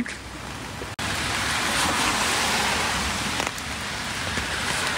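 Steady rain hiss, rain falling on wet pavement and an umbrella overhead. It steps up louder about a second in.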